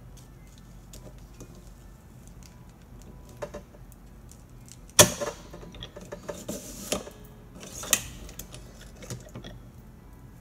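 Top-O-Matic T2 hand-crank cigarette injector being worked: metallic clicks and clacks from its crank and slide, loudest a sharp clack about five seconds in and another near eight seconds, with lighter clicking and rattling in between.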